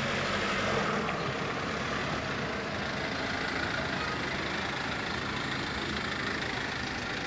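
Mercedes-Benz Vito police van's engine running steadily as the van drives slowly past close by, with low street traffic noise.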